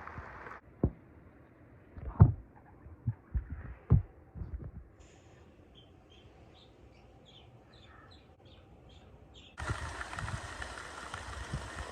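Thunderstorm sounds. There are several short, low thumps in the first four seconds. Then comes a few seconds of near quiet with faint high chirps, and a steady hiss sets in near the end.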